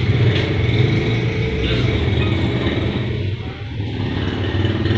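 A steady low engine hum, like a motor vehicle running close by.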